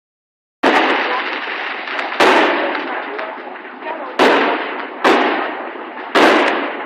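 Fireworks going off: five sharp bangs in a row, each followed by a noisy tail that dies away over a second or so.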